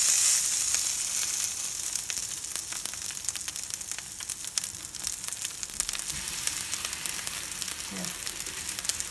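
Salmon fillets sizzling on a hot ridged grill pan. The sizzle is loudest as the second fillet is laid down at the start, then settles to a steady hiss with many small crackles.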